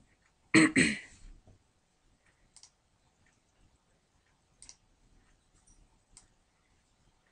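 A short, loud burst of noise about half a second in, then a few faint single computer-mouse clicks spaced a second or two apart.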